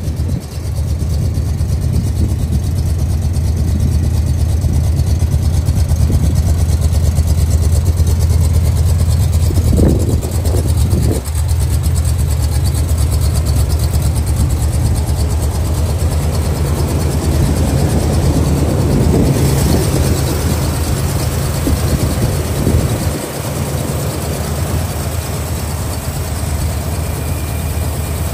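Big-block V8 of a 1979 Ford Ranger pickup idling steadily with a low, even note. A couple of brief thumps come about ten seconds in.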